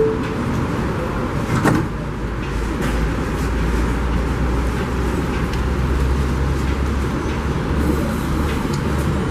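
Subway train pulling out after its doors close: a steady low rumble of motors and wheels that grows stronger after a couple of seconds. A single sharp knock comes in just under two seconds in.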